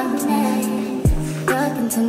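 Background music with a beat and a deep bass hit that drops in pitch about a second in.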